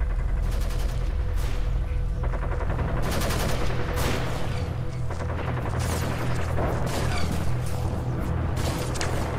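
Battle sound effects from a music video's intro: gunfire, with quick runs of shots and booms, over a low, steady rumbling drone.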